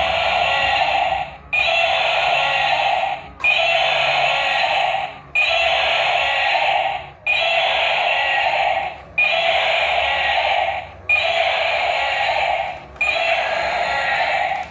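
A toy's electronic sound clip playing over and over, each play about a second and a half long with a short break, about every two seconds.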